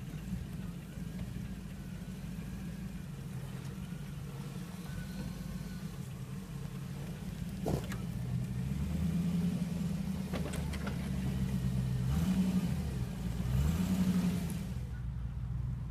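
Land Rover Discovery's Rover V8 engine running at low speed as the truck crawls along railway tracks, revs rising in several short pushes in the second half and getting louder as it comes closer. A few sharp knocks, the loudest about eight seconds in.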